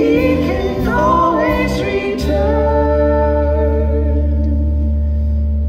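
Live musical-theatre song: a sung phrase, then a long held note over a sustained chord with deep bass.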